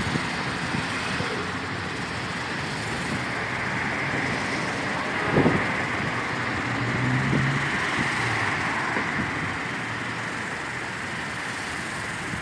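Steady road traffic going by, with engine and tyre noise and one short, louder knock about five seconds in.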